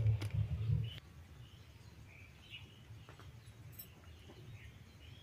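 About a second of low rumbling noise on the microphone, then a quiet background with faint, scattered bird chirps.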